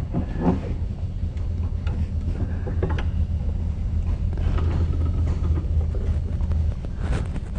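A steady low hum that cuts out near the end, with faint rubbing and scraping and a click about three seconds in, as soot is cleaned off a side-by-side shotgun's action held in a bench vise.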